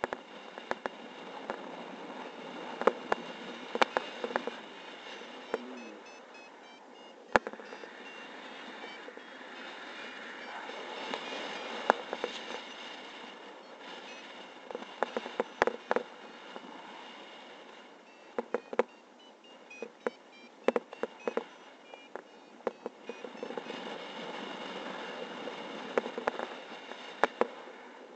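Wind rushing over the microphone of a camera on a flying paraglider, swelling and easing. Sharp clicks and knocks come through it throughout, with faint short high beeps now and then.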